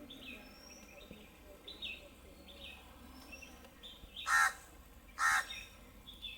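Birds calling: a steady scatter of short high chirps, with two loud harsh calls about a second apart near the end.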